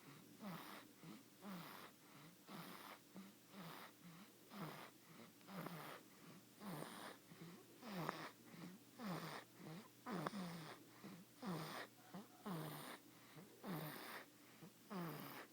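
A five-week-old snoring in its sleep: quick, even snoring breaths, about two a second, each with a short falling squeak.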